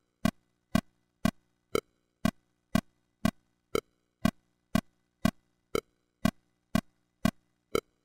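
Pro Tools click track playing metronome clicks at 120 beats per minute: two sharp clicks a second, with a brighter accented click on every fourth beat, the downbeat of each bar.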